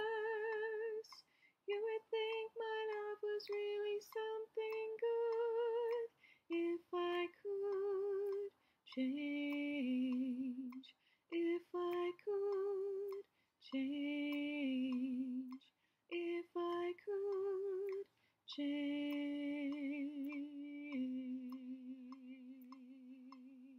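A woman singing an alto part solo, phrase by phrase, with vibrato on the held notes, over a metronome ticking steadily. Near the end she holds one long low note that fades away.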